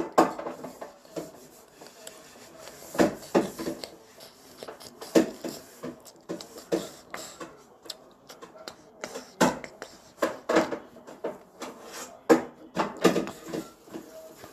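Irregular knocks and clatter, some sharp and loud, coming at uneven intervals.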